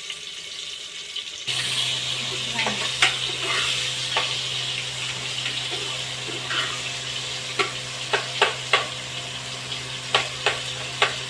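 Masala sizzling as it fries in oil in a pan, starting about a second and a half in with a steady low hum beneath it. A spatula stirs and knocks against the pan, the knocks coming more often in the second half.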